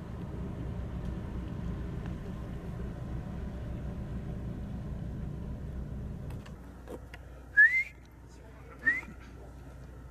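Low steady drone of a small passenger ferry's engine, which drops away about six and a half seconds in. Then two short, loud rising whistles come about a second apart.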